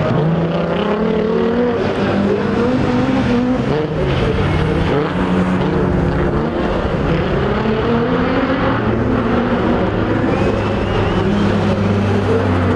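Several autocross Super Car engines racing on a dirt track, overlapping. Their pitches climb and drop repeatedly as they rev up through the gears and ease off into the corners.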